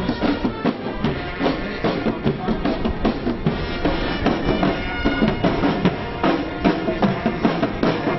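Marching band playing a march: bass and snare drums keep a steady beat of about two strokes a second under the band's melody.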